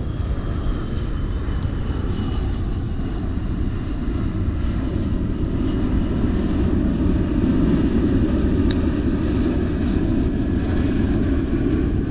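Steady low rumble of distant engine noise that swells through the middle, with a single sharp click about two-thirds of the way through.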